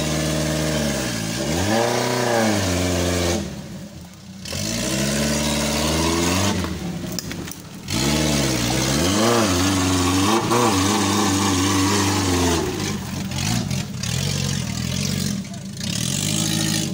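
Off-road 4x4's engine revving up and down in repeated bursts of throttle as the vehicle struggles through deep mud, with the revs dropping away briefly a couple of times.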